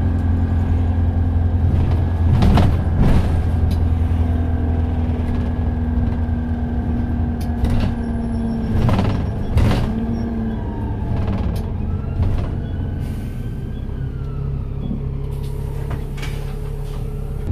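Cabin noise inside an Optare Solo SR single-deck bus on the move: a steady low diesel engine drone with road noise, easing off about ten seconds in. Sharp knocks and rattles from the body and fittings come through several times, loudest about three seconds in and around nine to ten seconds.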